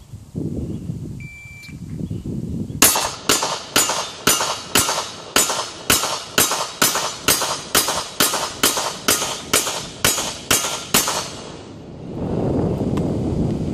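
A short beep, then a semi-automatic handgun fired in one rapid, even string of about twenty shots, roughly two and a half a second.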